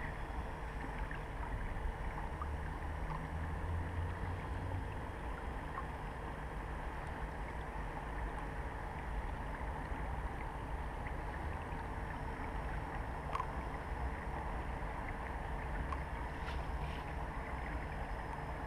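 Steady low rumble of wind and water against a camera mounted on an inflatable boat, with a faint steady hum and a few faint ticks.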